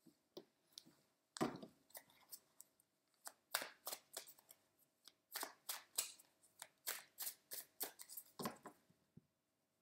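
A deck of tarot cards being shuffled by hand: a quick, irregular run of card snaps and flicks, the loudest about a second and a half in and again near the end.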